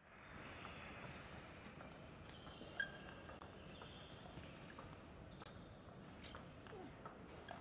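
Table tennis rally: the plastic ball clicking off the rackets and the table in an irregular string of sharp hits, the loudest about three seconds in and again just after six seconds.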